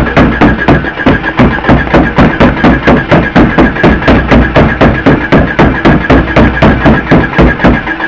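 Rapid, regular hammer blows, about four to five a second, struck under a GMC truck near its fuel tank, over the low drone of the engine being cranked without starting. It is the trick of jarring a stuck in-tank fuel pump, and the engine does not catch: a sign the fuel pump is dead.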